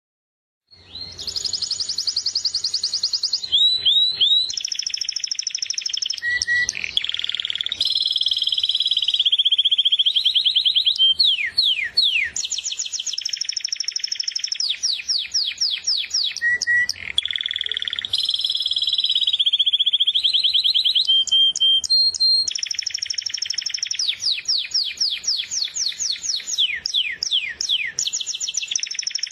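Canary singing a long, continuous song of rapid trills and runs of repeated high notes, starting about a second in.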